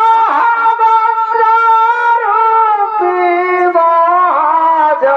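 Shehnai, the double-reed pipe of Chhau dance music, playing long held notes with small ornamental bends, stepping down to a lower note about three seconds in.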